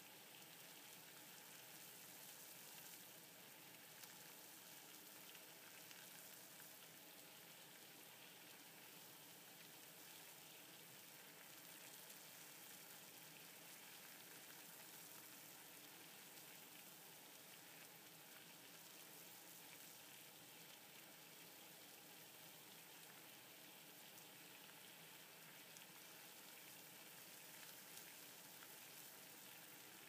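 Water at a rolling boil in a stainless steel pot on a stove: a faint, steady bubbling hiss dotted with small pops.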